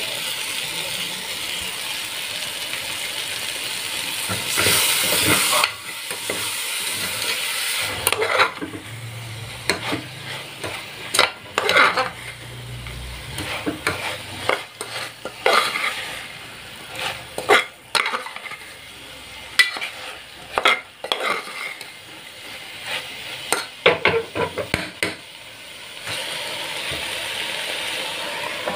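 Metal spoon stirring soya chunks and vegetables in a hot aluminium pressure cooker, with sizzling. A steady sizzle fills the first several seconds, then irregular scrapes and knocks of the spoon against the pot wall and bottom run through the middle, and the steady sizzle returns near the end.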